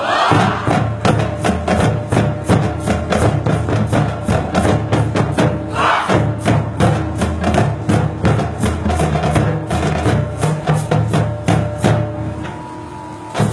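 High school marching band playing, with rapid drum strikes from the percussion section over sustained low brass tones. The music thins out and drops in level near the end.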